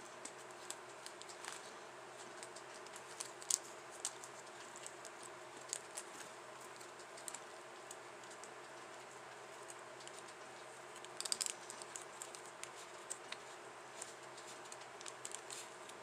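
Small scattered clicks and taps of fingertips rolling and pressing soft candy dough in a plastic candy-kit tray, with a short cluster of clicks about eleven seconds in, over a faint steady hum.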